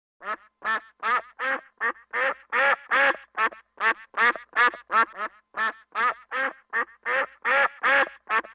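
Duck quacking over and over in a steady, even run of about three quacks a second.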